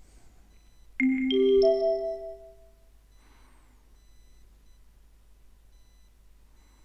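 Three-note rising chime in the exam listening recording, the notes struck in quick succession about a second in and ringing out together for about a second. It is the signal tone that marks the gap between one recorded message and the next.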